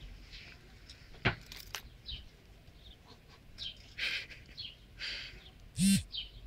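Wild birds chirping in short, high calls, with two sharp clicks about a second in and a brief loud low sound near the end.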